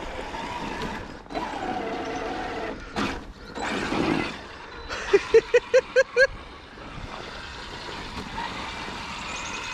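Traxxas X-Maxx RC monster truck's electric motor whining, its pitch rising and falling as it is driven. There is a sharp knock about three seconds in, and a quick run of six short, evenly spaced beeps about five seconds in.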